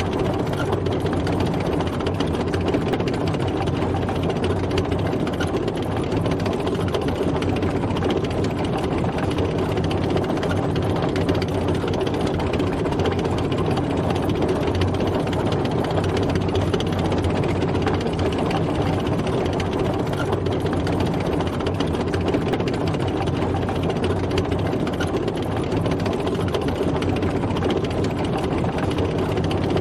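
A tank driving, its engine running steadily with an even, unchanging drone.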